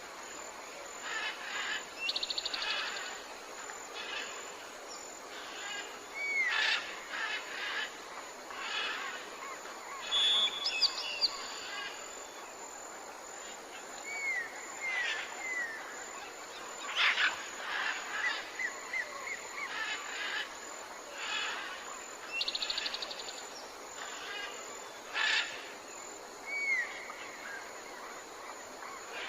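Tropical forest ambience: several birds calling with repeated chirps, short slurred whistles and quick rattling trills, over a steady high-pitched insect whine and a soft background hiss.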